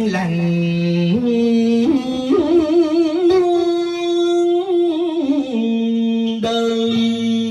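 A man singing tân cổ, a Vietnamese song style drawn from vọng cổ, into a karaoke microphone over a backing track. He holds long notes with a wavering vibrato.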